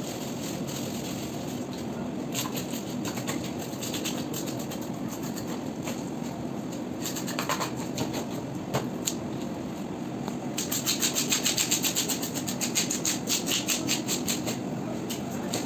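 Red plastic fish scaler scraped along a whole fish's skin, stripping its scales: scattered strokes at first, then from about ten seconds in a quick, even run of scraping strokes, about five a second, over a steady low background noise.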